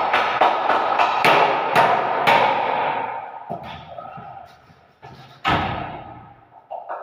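About six sharp knocks on the door fitting in the first two and a half seconds, each ringing on briefly. About five and a half seconds in, the newly hung toilet door swings shut with a heavy thud.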